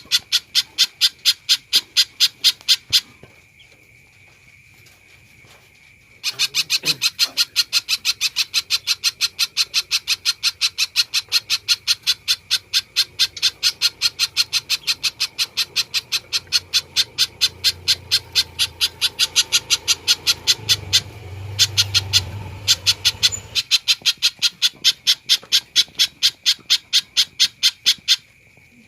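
A spiderhunter (pijantung) calling hard in fast runs of sharp repeated notes, about four a second. A short run stops about three seconds in, and after a pause a long unbroken run goes on for over twenty seconds with only brief breaks.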